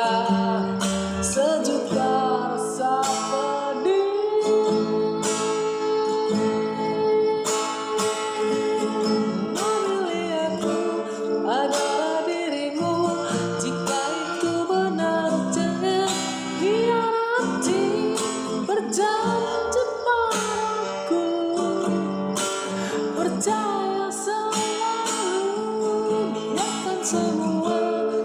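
Acoustic guitar accompanying a singing voice in a cover of a Malay pop ballad.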